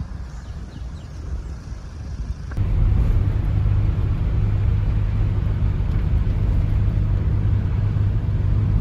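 Motor vehicle driving, a steady deep drone of engine and road noise; it gets much louder at a cut about two and a half seconds in and stays steady after.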